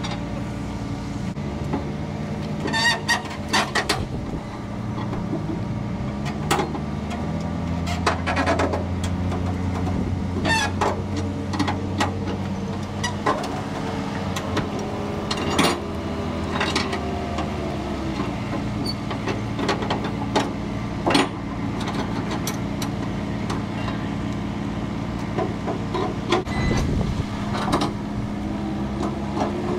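An engine idling steadily under scattered sharp metallic clicks and clanks as flatbed strap winches are loosened and ratchet straps released from a load of wrecker bodies.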